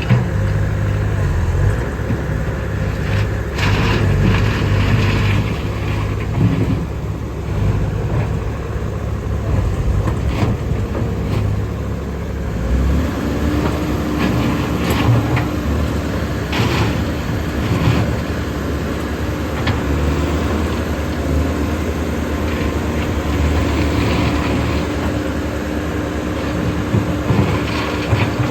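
Komatsu PC130 excavator's diesel engine running steadily, with occasional knocks; about halfway through the sound changes and a steady humming tone joins the engine.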